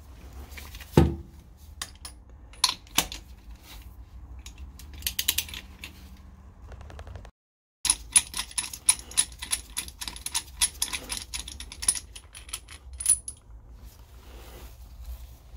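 Metal tool clicks and clinks as spark plugs are taken out of a UAZ 469 engine, with a sharp clack about a second in. After a brief gap about halfway, a socket wrench ratchets in quick runs of clicks.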